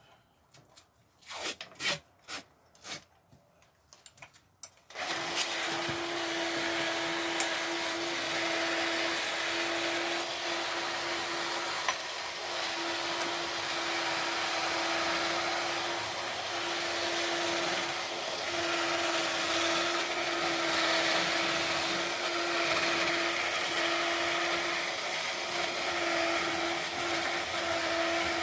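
A few light clicks and knocks of tools being handled, then about five seconds in a small electric motor starts and runs steadily with an even hum.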